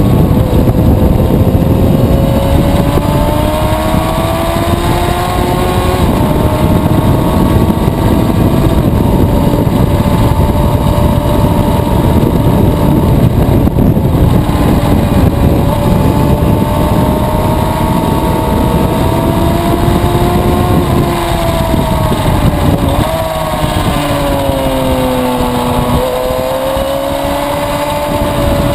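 2011 Suzuki GSX-R750's inline-four engine running hard at high revs, its note climbing slowly and stepping down twice at gear changes, with heavy wind rush over the microphone. Near the end the revs fall away as the bike slows for a corner, then climb again.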